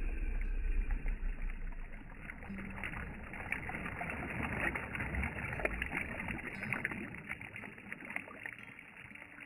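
Small lake waves lapping and splashing over rocks at the water's edge: a continuous wash made of many small splashes, with a low rumble in the first second or so.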